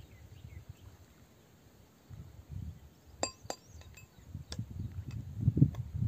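Two sharp, ringing clinks of stone knocking on stone, a third of a second apart, with a few fainter ticks and low scuffing thumps near the end as loose rock is moved about.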